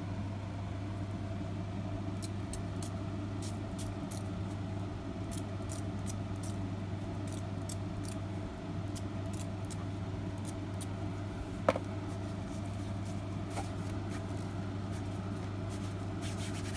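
Small spray bottle spritzing water onto sari silk in a string of short, quick spritzes over a steady low hum, with one sharp knock about twelve seconds in.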